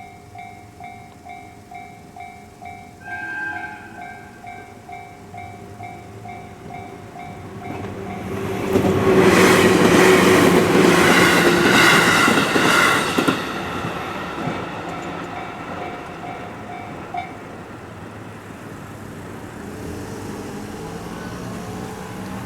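Japanese level-crossing alarm dinging about twice a second. A brief horn-like tone sounds about three seconds in. About eight seconds in, an electric train passes loudly for some five seconds, its wheels clacking over the rail joints. The train fades away, and the alarm stops at about seventeen seconds.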